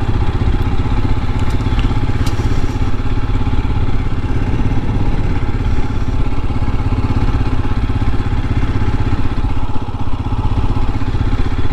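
Royal Enfield Himalayan's 411 cc air-cooled single-cylinder engine running steadily under way, a low, even pulse heard from the rider's seat.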